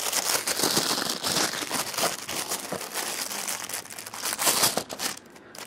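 Thin clear plastic packaging bag crinkling as it is handled and unwrapped, a dense, continuous crackle that thins out near the end.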